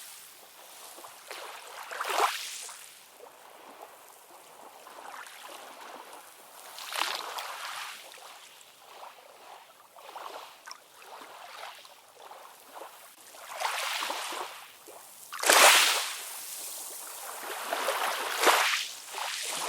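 Ocean waves washing in, a hiss of surf that swells and fades every few seconds, with the biggest wave late in the stretch.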